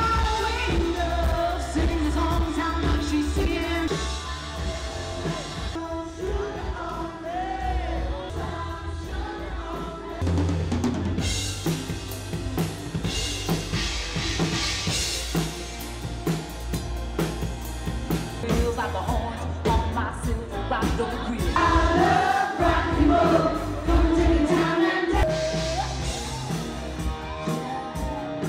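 Live rock band playing a song: a singing voice over electric guitars and a drum kit with a steady bass-drum beat.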